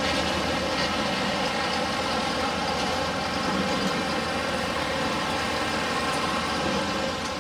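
Diesel engines idling steadily: the hitched pulling truck and the tractors moving around the sled.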